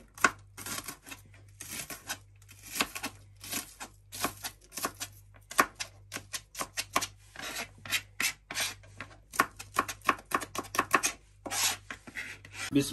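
Kitchen knife finely chopping an onion on a plastic cutting board: quick, uneven knocks of the blade on the board, several a second, with softer scraping slices in between.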